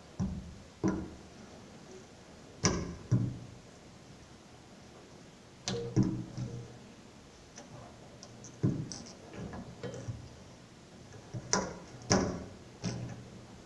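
Scattered, irregular knocks and taps, about a dozen, some coming in quick pairs, each with a short ring after it.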